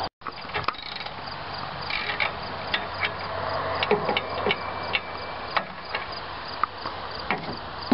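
Insects chirping in a steady, even rhythm, with scattered sharp clicks and knocks.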